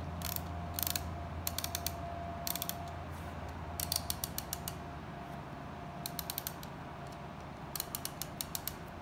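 Plastic gears of a hand-cranked LEGO Technic 42128 tow truck winch clicking in short bursts of quick ratchet-like clicks as the knob is turned to reel in the string.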